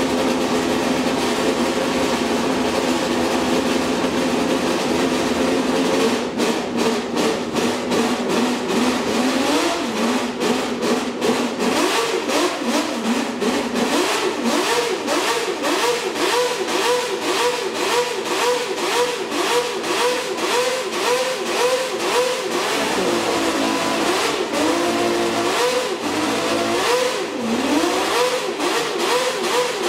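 Vintage Honda V12 Formula One engine running at a steady high idle for the first few seconds. It is then blipped on the throttle over and over, the pitch rising and falling in quick revs, with a few longer sweeps up and down.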